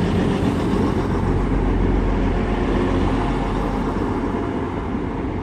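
Diesel multiple units (a Class 170 and a Class 175) pulling out of the station, their underfloor diesel engines running with a steady, even drone.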